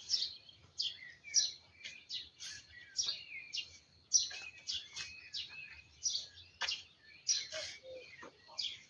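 Small songbirds chirping over and over in short, high notes, about two a second.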